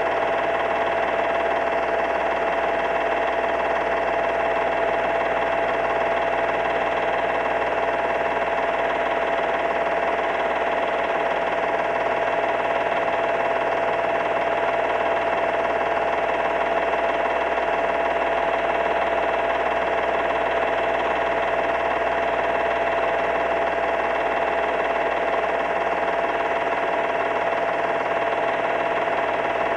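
Film projector running: a steady mechanical whine made of several fixed tones over a hiss, unchanging throughout.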